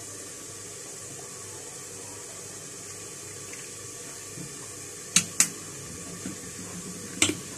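Steady background hiss, broken by two sharp clicks about five seconds in and another near the end.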